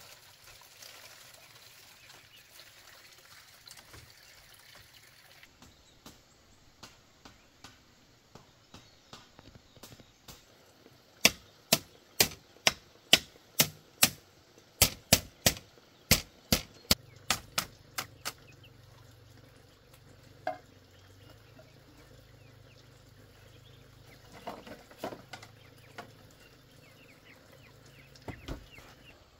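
A run of about twenty sharp strikes of a tool on bamboo, two or three a second, starting about eleven seconds in and lasting some seven seconds. Fainter knocks come before it, and a few more come near the end.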